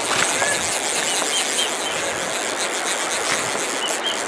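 Shallow stream water running over stones, a steady rushing noise, with a few short high chirps scattered through it.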